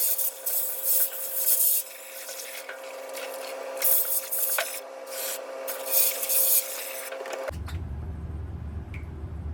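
Water splashing and sloshing in a washing machine tub, in irregular surges. The sound changes abruptly about seven and a half seconds in.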